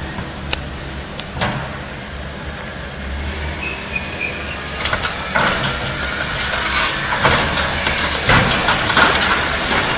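Excavator's diesel engine running steadily during demolition, with scattered knocks and then louder clattering and scraping of broken debris from about halfway through.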